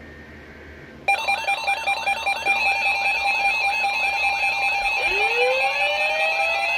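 Several emergency alert alarms go off at once, starting suddenly about a second in: a warbling tone repeating about three times a second over steady beeping tones. About four seconds later a further tone joins that slowly rises in pitch, like a siren winding up.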